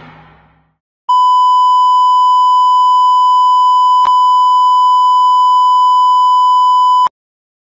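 A loud, steady, high-pitched electronic beep, one unchanging tone like a censor bleep. It holds for about six seconds from about a second in, with a faint click midway, then cuts off suddenly. A noisy sound fades out just before it.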